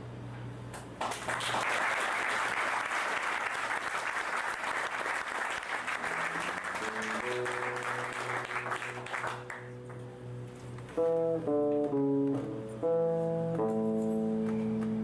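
Audience applauding for several seconds, dying away, while a solo electric guitar comes in with held low notes and then a picked melody line of single notes near the end.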